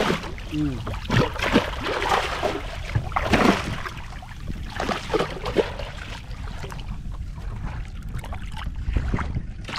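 Sea water splashing and sloshing at the side of a boat as a hooked fish thrashes at the surface and is grabbed by hand, busiest in the first few seconds, over a steady low rumble.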